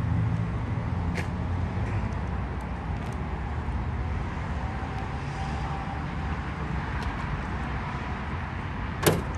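Steady low rumble of motor vehicles, a little louder in the first two seconds, with one sharp click near the end.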